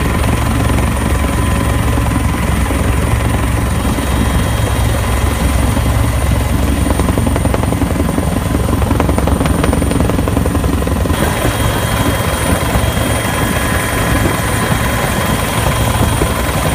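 Helicopter rotor and turbine engines running steadily, heard from on board: a loud, even drone with thin steady whines above it. About eleven seconds in the upper hiss grows a little brighter.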